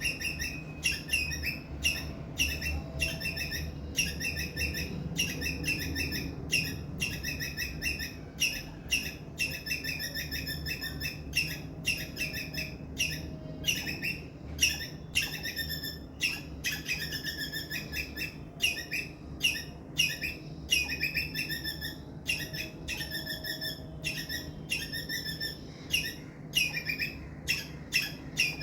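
Indian palm squirrel chirping loudly, a steady run of short, sharp, high-pitched chirps about two a second, some bunched into quick clusters. It is offered as the species' distress call.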